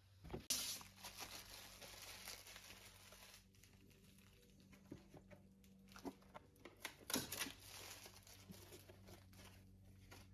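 Packing foam being pulled out of a Bambu Lab AMS filament unit: faint rustling, crinkling and a few light knocks on the plastic housing, over a low steady hum.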